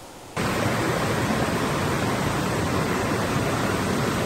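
Rushing water of a small mountain trout stream: a steady, loud hiss that starts abruptly about half a second in, after a quieter hush.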